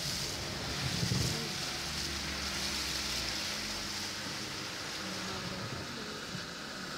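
Water hissing and splashing under the tyres of a vehicle driving through shallow floodwater, heard from inside the cabin, with the engine running low underneath. A brief low rumble about a second in.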